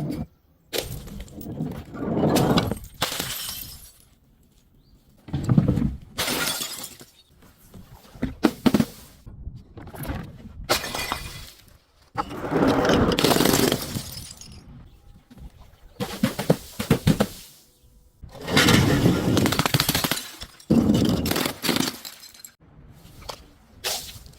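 Glass breaking and being crushed: a series of crunching, shattering bursts, each lasting up to a couple of seconds, with short pauses between them.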